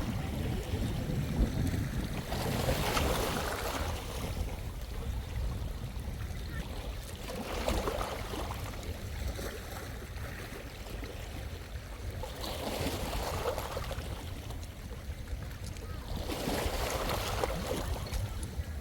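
Small sea waves washing onto the shore, four swells in turn about every four to five seconds, over a steady low wind rumble on the microphone.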